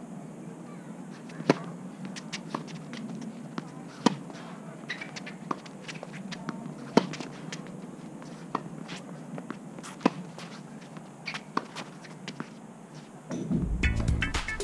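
A tennis rally: tennis balls struck by rackets, sharp loud strikes about every three seconds with fainter knocks between. Music comes in near the end.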